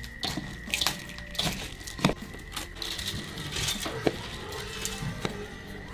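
Rice mixed with vegetables being stirred by hand in a stainless steel bowl and then tipped into a cloth-lined steamer: grains rustling and scraping against the metal, with a handful of sharp clicks and knocks.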